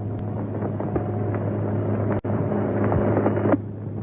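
Open air-band radio channel: a steady low hum under hiss, with a brief dropout about two seconds in and the noise dropping away near the end.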